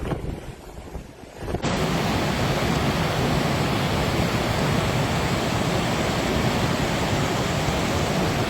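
Wind buffeting the microphone, then, after a sudden cut about a second and a half in, a steady loud rush of fast-flowing floodwater.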